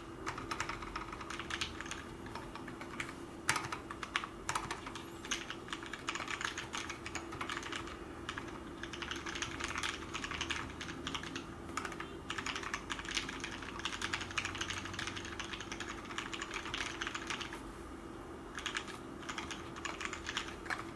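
Fast continuous typing on a custom mechanical keyboard with Cherry MX Brown switches: a dense run of keystroke clacks that eases off briefly near the end before picking up again. A faint steady hum runs underneath.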